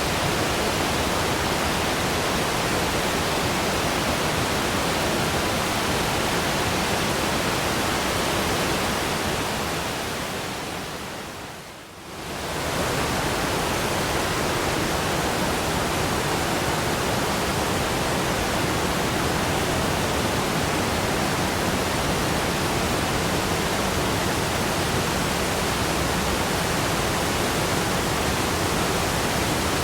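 Waterfall rushing in a steady, even roar of falling water. About twelve seconds in, it fades down briefly and swells straight back to full level.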